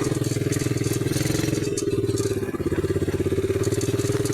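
ATV engine running steadily, with a fast, even putter.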